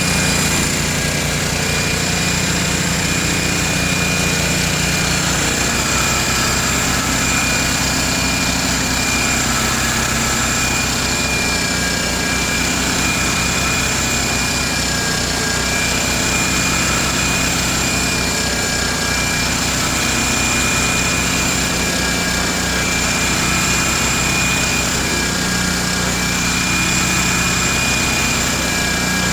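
Portable rail profile grinder running steadily, its small engine humming under a constant high-pitched whine.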